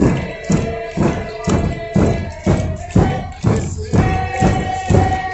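Inuit drum song: a frame drum struck in a steady beat about twice a second, with long held sung notes over it.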